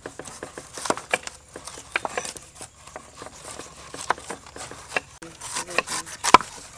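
Knives cutting the rind off whole pineapples on wooden chopping boards: irregular slicing cuts and knocks of the blades against the wood, a few a second, the loudest one near the end.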